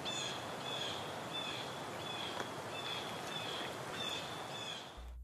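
Outdoor ambience: a bird repeating a short, high, slightly falling chirp about every two-thirds of a second over a steady hiss. The calls stop near the end.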